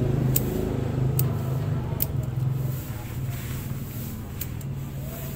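Bonsai scissors snipping twigs and leaves off a sancang bonsai, a run of sharp snips spaced about a second apart. Under them is a low vehicle-engine rumble that drops off about three seconds in.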